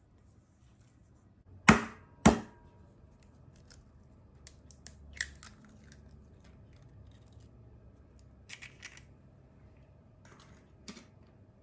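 An egg tapped twice against a hard edge to crack it: two sharp knocks about half a second apart, followed by quieter clicks and taps as the shell is pulled apart over a plastic egg separator.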